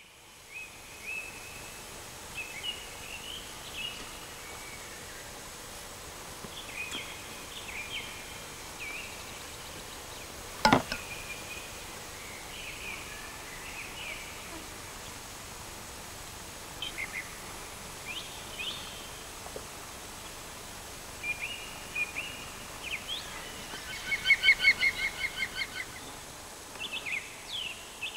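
Songbirds chirping and singing in scattered short phrases over a steady hiss. A single sharp click comes about ten seconds in, and near the end there is a fast rattling run of calls about two seconds long.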